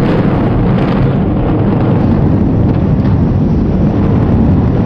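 Loud, steady low rumble of two high-rise towers collapsing in a controlled demolition implosion.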